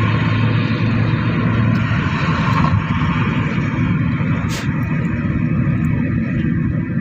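Steady low rumble of a car's tyres and engine heard from inside the cabin while driving. A brief sharp click about four and a half seconds in.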